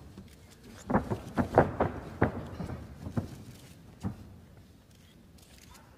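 Irregular thuds and slaps from two fighters grappling on a ring mat: a quick cluster of about eight in the first three seconds and one more about four seconds in.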